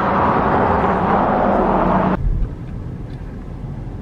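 Road and wind noise of a car driving, a loud even rush with a steady low hum. About two seconds in it cuts off suddenly, leaving a quieter low rumble.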